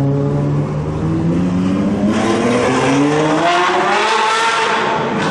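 Ferrari 812's V12 engine accelerating away, its note climbing steadily in pitch over several seconds.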